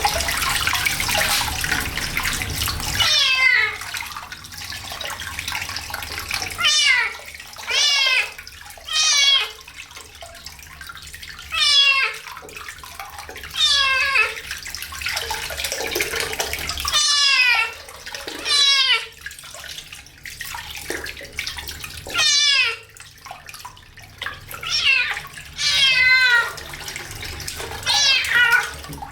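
Kitten meowing over and over while being bathed: more than a dozen high calls, each falling in pitch. Running water is heard for the first few seconds, then stops.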